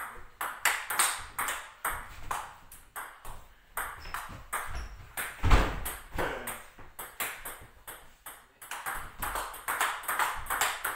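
Table tennis rally: the ball clicking off the paddles and bouncing on the table, a few strikes a second, back and forth. One heavier thump comes about halfway through.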